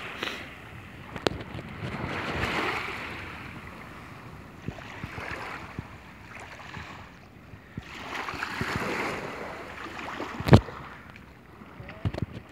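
Small waves lapping at the shoreline, with wind on the microphone; the wash swells and fades twice. About ten and a half seconds in there is one loud thump.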